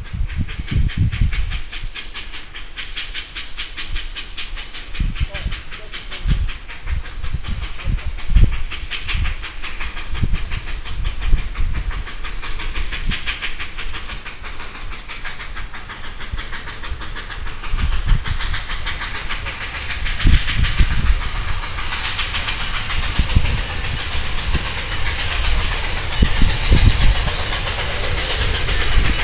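Robert Dollar #3 steam locomotive working as it approaches: a fast, even beat of exhaust chuffs with steam hissing, growing louder over the last several seconds, with scattered low thumps.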